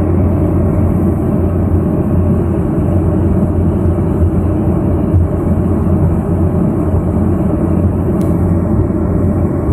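Let L-410 Turbolet's twin turboprop engines run with a steady, unbroken drone and a strong low hum.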